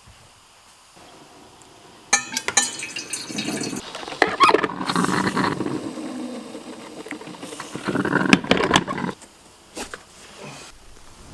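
Clinks and rattles of kitchenware handled at a sink, with some water running. It starts about two seconds in and stops shortly before the end.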